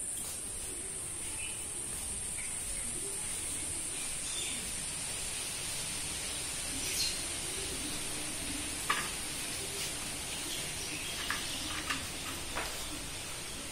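Outdoor ambience: a steady high hiss with a few short bird chirps. Several light clicks come near the end, from small brass vessels being handled.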